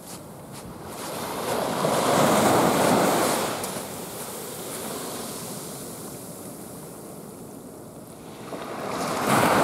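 Small waves breaking and washing up the beach, swelling loud about two seconds in and again near the end.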